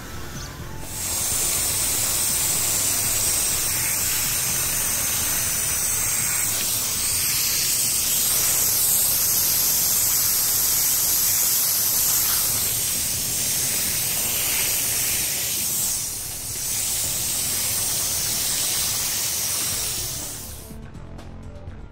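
Garden hose spraying water close against a block wall: a loud, steady hiss that dips briefly about three-quarters of the way through and stops shortly before the end. Background music plays beneath it.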